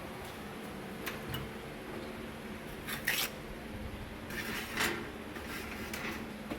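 Light handling clatter: a few scattered clicks, knocks and scrapes of small hard parts being moved, over a faint steady hum.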